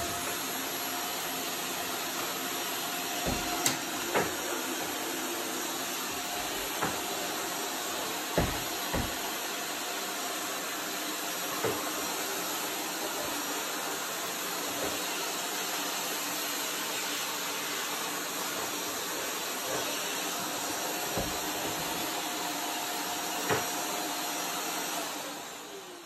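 A Shark upright vacuum cleaner switches on and runs steadily with its long extension wand and bendable under-appliance wand fitted, making a steady whooshing hiss with a faint whine. A few short knocks sound through it. The motor winds down about a second before the end.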